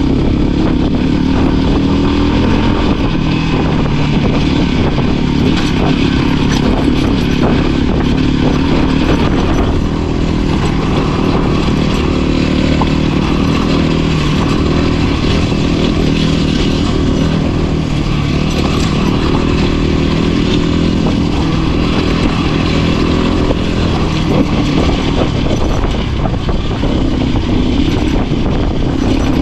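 Voge 300 Rally dual-sport motorcycle's single-cylinder engine running steadily under load while riding over loose rocks, its pitch rising and falling a little with the throttle. Scattered rattles and ticks from the bike and stones sound over it.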